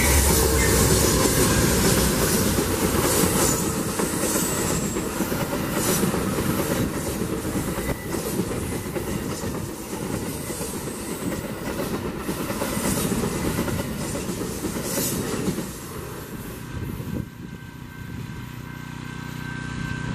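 Amtrak passenger train, a GE Genesis diesel locomotive followed by bilevel Superliner coaches, passing close at speed: a loud rolling rumble with wheels clicking over the rail joints. The sound fades quickly about sixteen seconds in as the last car goes by.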